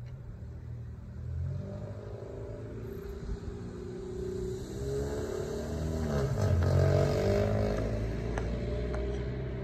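A vehicle's engine passing on the street, its pitch shifting as it speeds up, growing louder to a peak about seven seconds in and then fading a little.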